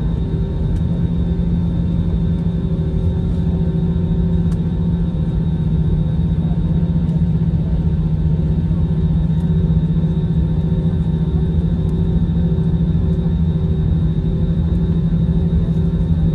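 Airbus A321 cabin noise while taxiing: the jet engines and airflow heard through the fuselage as a steady rumble with a strong low hum and a faint high whine.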